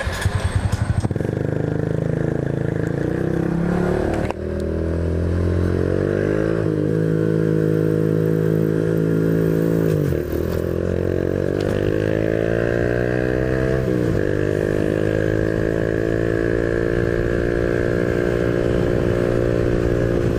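Honda Biz 125's single-cylinder four-stroke engine pulling through the gears under acceleration. The pitch climbs, then drops sharply at shifts about 4, 10 and 14 seconds in, and holds steady after the last shift.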